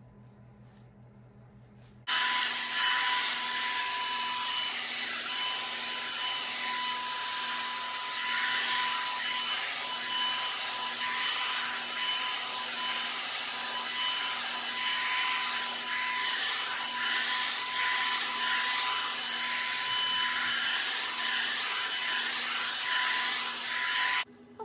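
Revlon One-Step hot air brush dryer switched on about two seconds in, blowing a loud, steady rush of air with a thin motor whine, then switched off abruptly just before the end.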